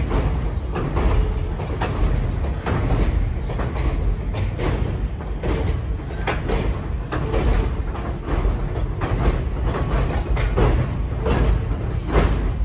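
New York City subway 3 train passing on an elevated overpass, with a steady low rumble and many irregular metallic clacks from the wheels on the rails.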